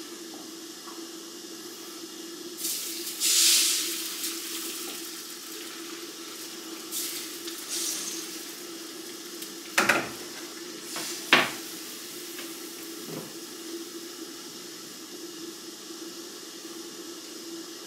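Egg-white pancake batter sizzling as it is ladled into a hot frying pan, hissing loudly for a couple of seconds and again more briefly. A few sharp clinks of the ladle against the pan and bowl come near the middle, over a steady hum.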